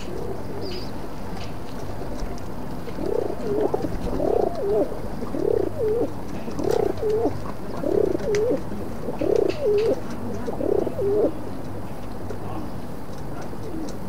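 Pigeon cooing: a run of rising-and-falling coos, about one a second. It starts a few seconds in and stops a few seconds before the end.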